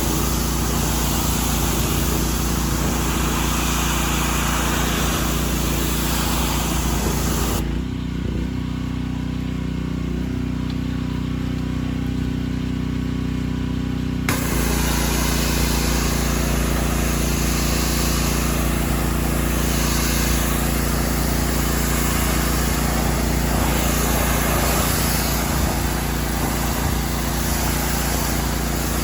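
Gas-engine pressure washer running steadily with water spraying hard from the wand. About eight seconds in, the spray stops for roughly six seconds and only the engine is heard, then the spray starts again.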